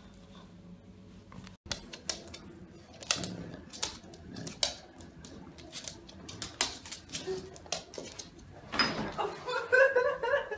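Chow chow puppy at play: a run of sharp clicks and taps, then a louder scuffle and a string of short, high squeaks near the end.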